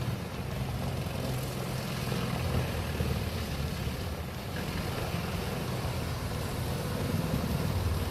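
Vermeer HG6800TX horizontal grinder running: a steady low diesel-engine drone with a constant hiss of material being ground.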